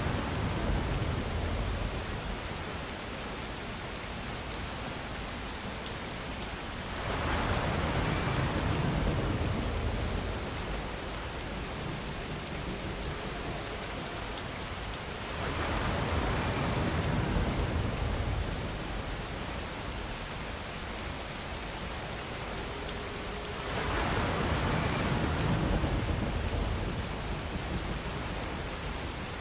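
Steady heavy rain, with a low rumble of distant thunder swelling up and dying away about every eight seconds, three times over.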